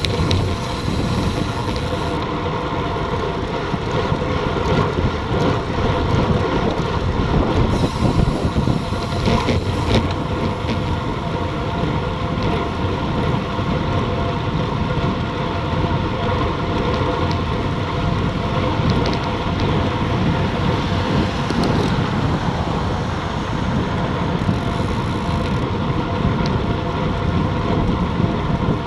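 Steady rush of wind and road noise from a road bike riding at about 40 km/h, picked up by a bike-mounted action camera's microphone.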